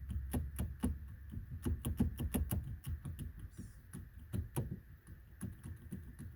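A 2003 Ford Fiesta steering shaft, its wheel removed, is rocked back and forth by hand, giving an irregular run of quick clicks and knocks. The knocking comes from the column's abnormal play.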